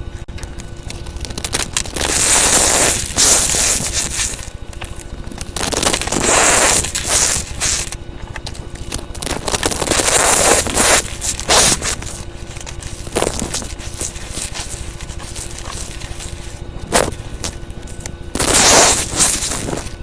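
Fidget toys handled close to the microphone: repeated bursts of crackling and scraping, each lasting a second or two, with a few single sharp clicks between them.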